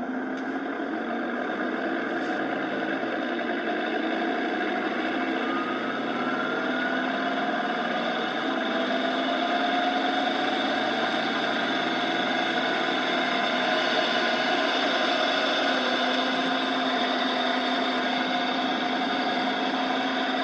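Inside the cabin of a 2014 Dodge Charger Pursuit with a 5.7 L HEMI: the car running with a whine through the driveshaft tunnel, which starts climbing in pitch about five seconds in as the car picks up speed. The noise changes with road speed and not with gear, and the owner suspects the driveshaft hanger (carrier) bearing, rear axle or transmission.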